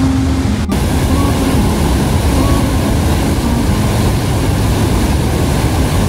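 Steady roar of a broad river waterfall in heavy flow, its water volume swollen by rain. Faint background music tones sound over it.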